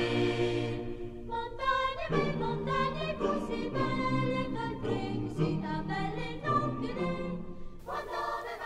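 A choir singing, with held notes that change every half second to a second.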